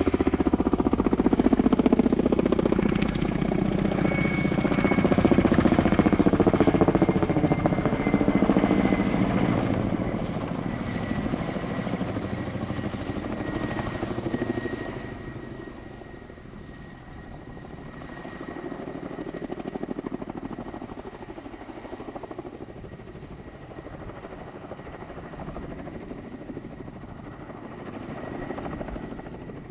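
Kamov Ka-32 coaxial twin-rotor helicopter flying low overhead, its rotor noise mixed with a turbine whine that slides slightly lower in pitch. It is loudest in the first several seconds, then fades off about halfway through as it moves away.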